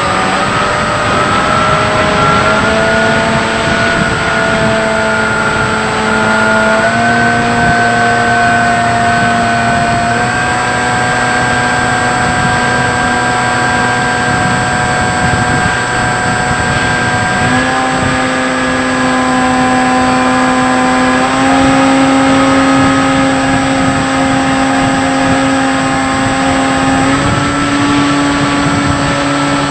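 Electric motor and propeller of a Bix3 foam trainer plane whining in slow flight, heard from its onboard camera with wind rushing over the microphone. The whine holds a steady pitch and steps up several times as the motor speed changes.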